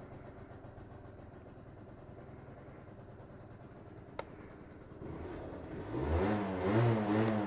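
Gilera Stalker 50 two-stroke scooter engine idling just after starting, with a single sharp click about four seconds in. Near the end the throttle is blipped and the engine revs up and down in quick swells.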